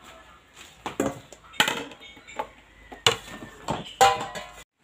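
Stainless steel bowl being handled on a kitchen counter: a handful of sharp metallic knocks and clatters with a brief ring, the loudest about three and four seconds in, then the sound cuts off abruptly.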